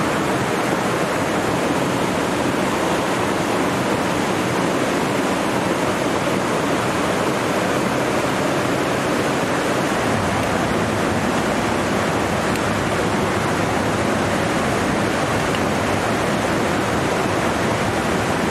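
Waterfall rushing: a steady, even sound of falling water that does not change.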